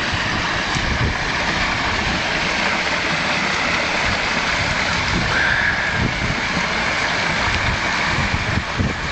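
Garden pond waterfall, pump-fed, splashing steadily down weathered limestone rocks, with wind buffeting the microphone in low gusts.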